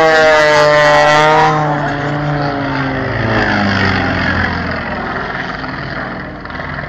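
Aircraft flying low past, its engine noise sweeping down in pitch as it goes by, then trailing off into a broad rushing sound that slowly fades.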